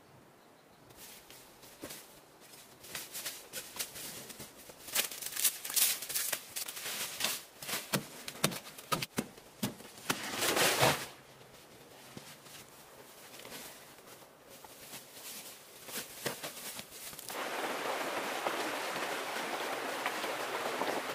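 Scattered rustling and snapping of leaves and plant stems, with a loud crackling rustle about ten seconds in. In the last few seconds comes the steady rush of a shallow rocky stream.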